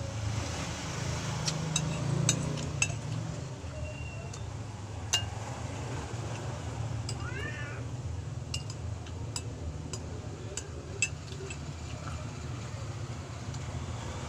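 Spoon and fork clinking and scraping on a plate while eating, scattered sharp clicks over a steady low hum. About seven seconds in, a short cat meow.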